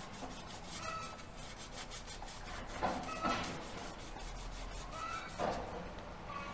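Abrasive cloth rubbed in quick repeated strokes along the edge of a steel scythe blade, a dry scratchy rubbing that smooths off paint, varnish and grind marks before the edge is peened.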